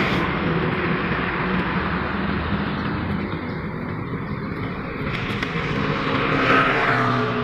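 Road traffic going past: a steady engine and tyre rumble, with one vehicle passing louder near the end.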